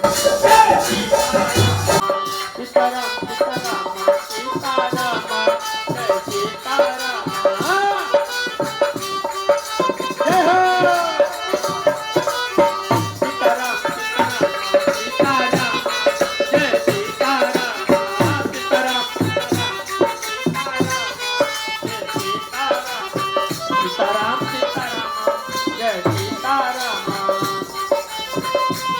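Hindu devotional kirtan music: a melodic line over fast, steady percussion.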